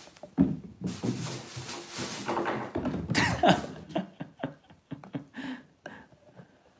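A kitten scrambling about on a wooden floor: a few seconds of rustling and scuffling with a couple of sharp knocks, then a run of quick light taps of its paws on the boards.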